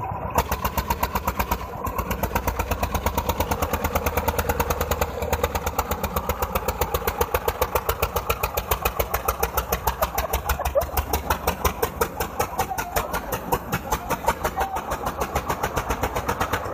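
Old Eicher tractor's diesel engine running hard under load, an even, fast thumping beat of firing strokes while the tractor spins in the dirt.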